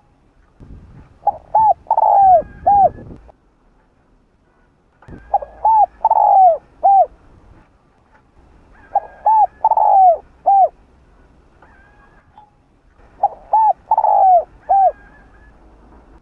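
Spotted dove cooing: four phrases about four seconds apart, each two short coos, a longer falling coo and a final short coo.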